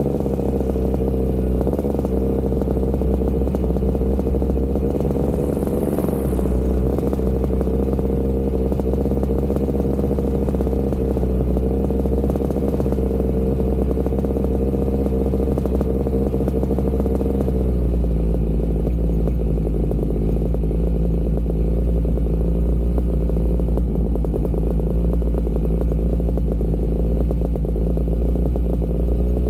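Backpack paramotor engine and propeller running steadily in flight. About two-thirds of the way through the engine note drops a little to a slightly lower, steady speed.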